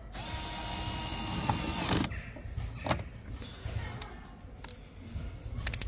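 A small power tool's motor whirs steadily for about two seconds, then stops, followed by several sharp clicks and knocks of parts being fitted on the car's tail-light assembly.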